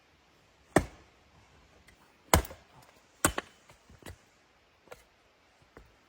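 A series of sharp chopping knocks: three loud strikes about a second apart, then a few fainter ones.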